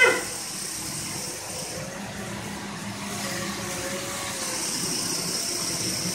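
Small propeller-driven toy flying saucer hovering and flying, its motor and rotors giving a steady high-pitched whine. A sharp knock at the very start.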